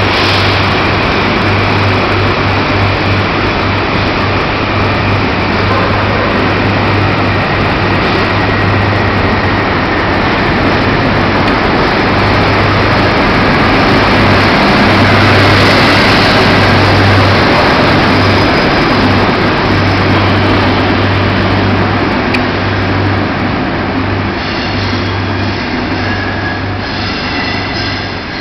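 Grand Central HST departing: the Paxman Valenta diesel engines of the Class 43 power cars running under power with a steady low hum, and the coaches rumbling past on the rails. It is loudest as the rear power car passes about halfway through, then fades as the train draws away, with a high squeal from the wheels on the curve near the end.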